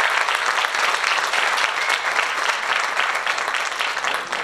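Applause from many people clapping at once, dense and steady, dying down at the very end.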